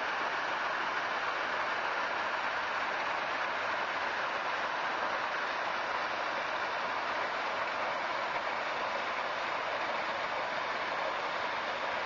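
Small mountain waterfall and cascading creek rushing over boulders: a steady, unbroken sound of falling water.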